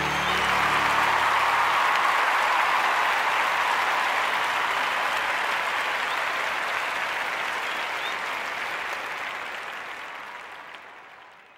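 Crowd applause, a steady dense clapping that fades out gradually over the last few seconds.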